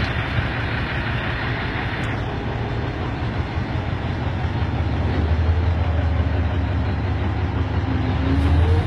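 Cat 988K wheel loader's diesel engine running under load while the raised bucket of rock is tilted over a dump truck. The low engine rumble grows louder about halfway through.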